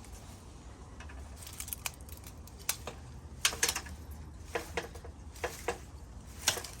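Irregular sharp snips and crackles of dry plant stalks being cut and broken back by hand, a dozen or so, loudest about halfway and near the end.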